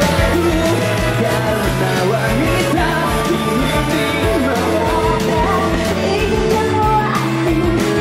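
A rock band playing with a singer's voice over electric guitars, keyboard and a steady drum beat.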